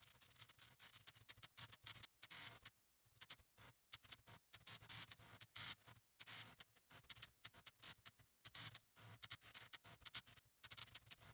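Faint, rapid, irregular clicking of typewriter keys striking, several strokes a second with a couple of short pauses.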